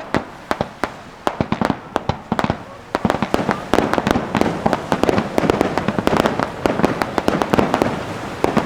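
Fireworks going off: separate loud bangs at first, then about three seconds in a dense, rapid barrage of cracks and bangs that keeps going.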